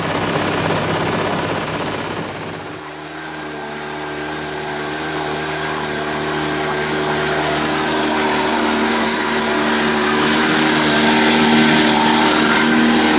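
Small tiller-steered outboard motor running steadily with the boat underway, growing gradually louder. Its sound changes abruptly about three seconds in.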